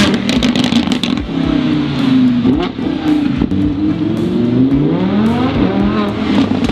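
Lamborghini Huracán's V10 engine revving and accelerating, its pitch rising and falling several times through throttle blips and gear changes, with a quick run of crackles in the first second.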